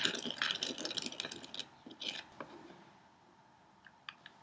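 A small stirrer scraping and clicking quickly and irregularly against the sides of a small plastic cup as a candy-kit mix is stirred, for about two and a half seconds. A few faint clicks follow near the end.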